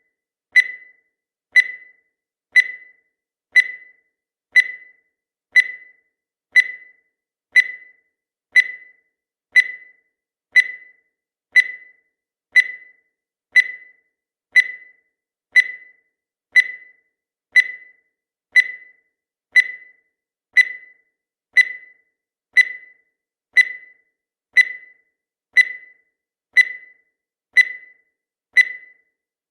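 Countdown timer sound effect: a short high-pitched blip once every second, each dying away quickly, in a steady unbroken rhythm.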